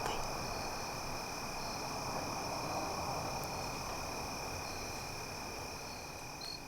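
Steady high-pitched trilling of an evening insect chorus, crickets, over a low even hiss.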